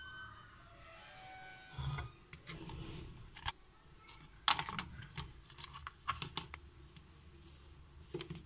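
Scattered small clicks, taps and rustles of hands moving plastic toy figures and props on a tabletop, with one sharper click about four and a half seconds in.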